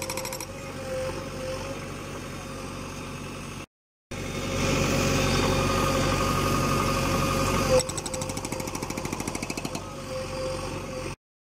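JCB 3DX Xtra backhoe loader's diesel engine running, with the HM 380 hydraulic breaker's rapid hammering stopping just after the start. The engine runs louder after a brief dropout about four seconds in, then settles into a pulsing beat before the sound cuts off just before the end.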